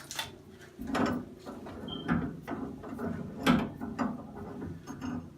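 A steel seat wrench turning in an old Price Pfister two-handle shower valve body, unscrewing the hot-side valve seat: a run of irregular metallic clicks and scrapes. The seat being removed is rough and nicked, the cause of the dripping shower.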